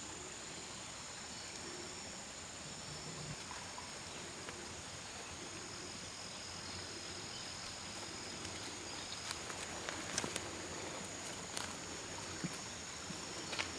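Insects singing steadily in a high, continuous shrill over a quiet hillside background, with scattered light clicks and rustles in the second half.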